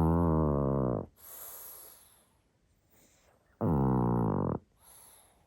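A pug snoring loudly. There are two long, pitched, rattling snores, one ending about a second in and another about three and a half seconds in, each followed by a softer breathy breath.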